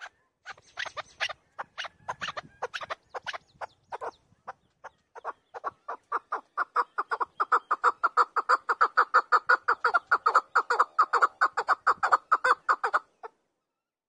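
Chukar partridge calling. It starts with scattered, uneven notes, then breaks into a fast, steady series of about five notes a second. The series grows louder and stops suddenly near the end.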